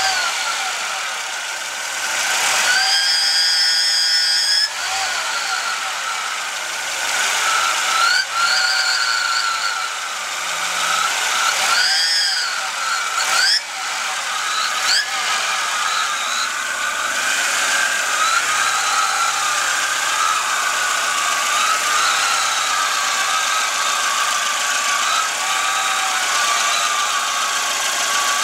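Turbocharged Volvo 242 engine running with a loud, high-pitched whine that glides up and down several times as the engine is revved, then holds fairly steady. It is the unexplained noise the owner is chasing; the turbo has no shaft play.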